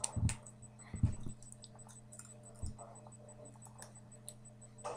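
A few short, soft knocks and clicks, mostly in the first second and a half with one more a little past halfway, over a low steady electrical hum.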